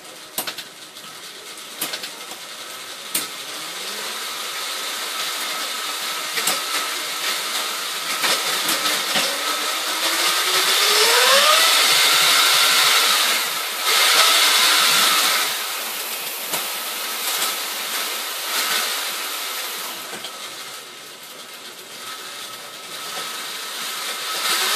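GNG mid-drive e-bike conversion motor running and driving the bike's drivetrain, with a motor whine that rises in pitch as it speeds up about ten seconds in, together with mechanical rattling and clicks. It is loudest for a few seconds after the speed-up, then eases off.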